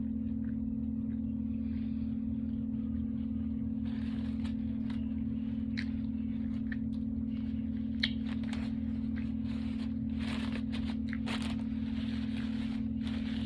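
Close-up eating of a Subway sandwich: bites and chewing heard as many short crackling clicks, starting about four seconds in and getting busier near the end. Underneath runs a steady low hum.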